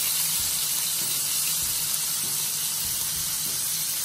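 Two ribeye steaks sizzling steadily in hot olive oil in a frying pan, an even hiss of searing as the crust forms.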